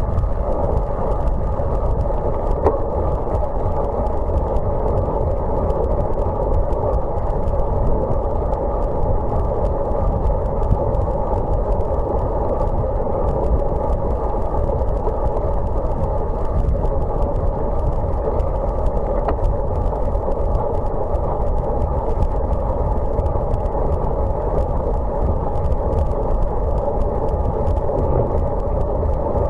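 Steady, muffled wind rush and road noise at a bicycle-mounted camera while riding on a wet road, mostly low, with no break or change.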